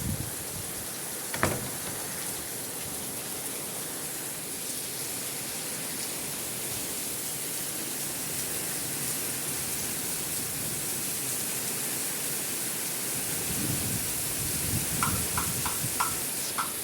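Steady hiss of heavy rain, with a single sharp knock about a second and a half in. Near the end, low gusts of wind rumble on the microphone, and a few short high chirps are heard.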